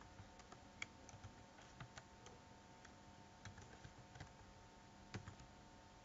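Faint computer keyboard typing: scattered, irregular keystrokes, with a slightly sharper click about five seconds in.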